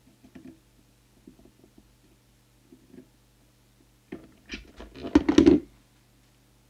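Faint scattered ticks of a tool working the trimmer capacitor on a CB radio circuit board. About four seconds in comes a second or so of louder irregular knocks and rustling as the hand and tool come away from the board, over a low steady hum.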